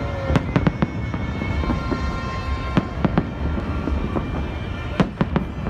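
Aerial fireworks display: a dozen or so sharp bangs and cracks at irregular intervals over a steady low rumble, the loudest about five seconds in.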